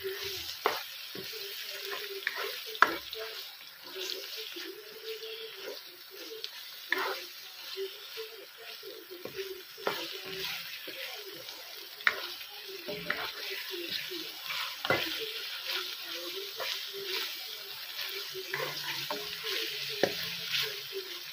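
Raw chicken pieces and diced onion frying in oil in a pan, a steady sizzle, while a plastic spatula stirs them with scattered sharp knocks and scrapes against the pan.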